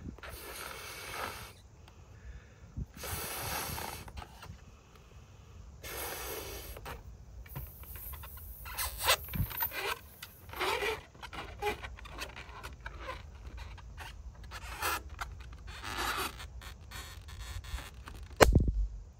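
A pink latex balloon being blown up by mouth: a series of long breaths into it, every few seconds, then a sudden loud bang near the end as the balloon bursts.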